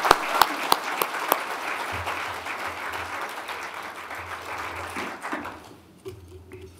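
Audience applause that fades out about five to six seconds in. Over it, a few louder, sharper hand claps sound close to the podium microphone at about three a second during the first second and a half.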